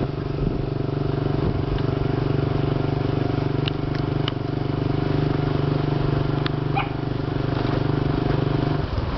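Motorcycle engine running at a steady cruising speed, its even note shifting just before the end.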